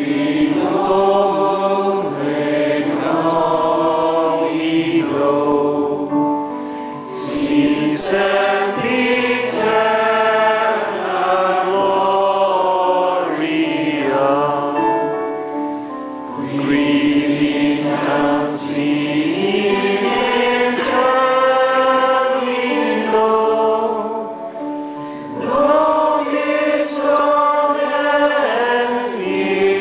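Congregation singing a slow worship chant together, in long sung phrases with short breaks between them.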